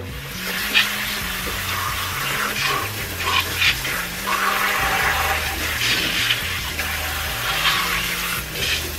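Kitchen tap water running steadily onto raw turkey wings in a colander, splashing over the meat as it is rinsed.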